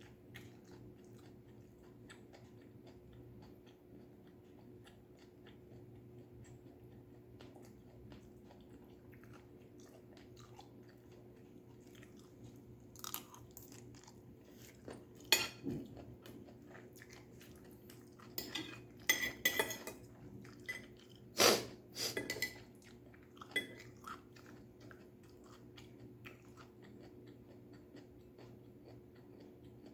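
Close-miked chewing and crunching of stir-fried vegetables, mouth sounds and small clicks over a faint steady hum. A few louder bursts of clicks and clatters come through the middle of the stretch.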